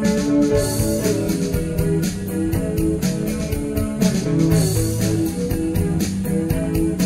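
Background music: a guitar-led track with a steady drum beat.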